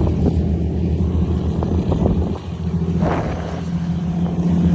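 Volvo FH truck diesel engines rumbling through aftermarket exhausts in a steady low drone. It dips briefly about halfway through, then a strong steady engine note builds toward the end.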